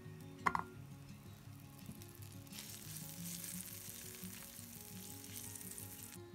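Butter sizzling as it melts in a hot nonstick frying pan, the sizzle starting about two and a half seconds in and cutting off suddenly near the end. A short knock sounds about half a second in, over quiet background music.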